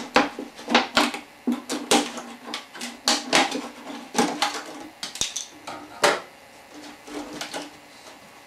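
Scissors snipping through the side of a 2-liter plastic bottle, the thin plastic crackling: a run of irregular sharp snips, one or two a second, that thin out after about six seconds.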